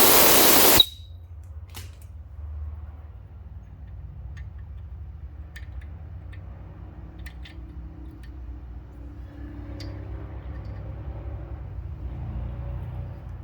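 A loud hiss for about the first second, cutting off sharply, then a faint low steady hum with a few light clicks.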